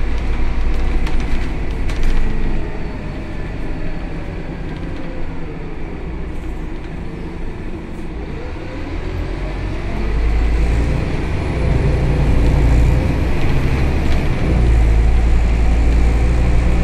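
Scania K280 city bus's rear-mounted nine-litre five-cylinder diesel and drivetrain heard from inside the passenger cabin, with light interior rattles. The engine eases off and falls in pitch as the bus slows, then rises in pitch and grows louder from about ten seconds in as the bus accelerates.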